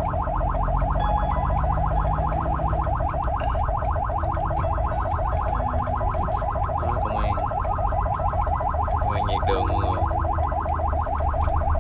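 Ambulance siren on a fast yelp, sweeping up and down in pitch many times a second without a break, heard from inside the cab over a low rumble.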